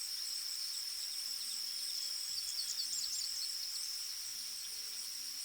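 Insects shrilling in one steady high-pitched drone, with faint bird chirps over it in the middle.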